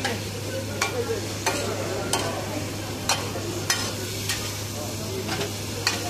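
A metal spatula strikes and scrapes a large flat iron griddle about nine times, spaced irregularly, as chicken pieces are stir-fried on it. Steady sizzling runs underneath.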